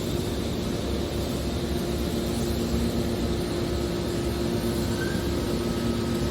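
Hydraulic scrap-metal baler running, a steady machine drone with a low rumble and a constant two-tone hum from its motor and pump.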